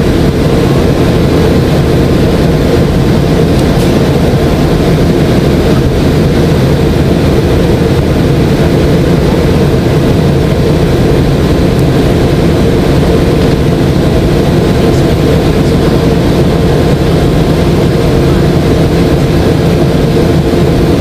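Steady cabin noise inside a McDonnell Douglas MD-90 airliner in flight: the drone of its rear-mounted IAE V2500 turbofan engines and rushing airflow, with a few steady hum tones running under it.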